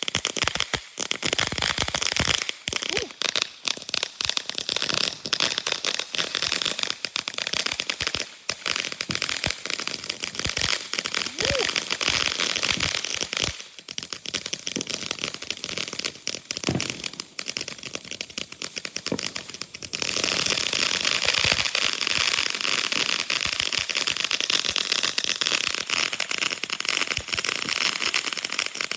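Consumer firework crackling with a dense, rapid stream of small pops. It thickens into a louder, continuous crackle about two-thirds of the way through.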